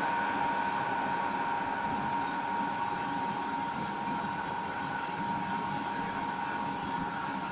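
Namkeen (farsan) extruding machine running steadily with a constant high whine, over the steady hiss of dough strands frying in hot oil in the wok below.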